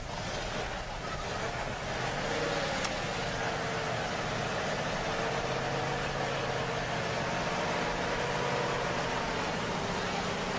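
Aircraft engines running steadily, a hum with several steady tones over a rushing noise, growing louder about two seconds in.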